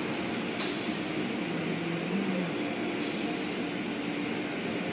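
Automatic car wash machinery running: rotating cloth brushes and water spray working over a car, a steady rushing noise with a low motor hum underneath. The hiss of the spray grows brighter from about half a second in until about three seconds in.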